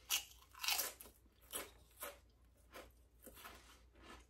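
A person chewing crunchy food close to the microphone: a string of irregular crunches, roughly one every half second to a second.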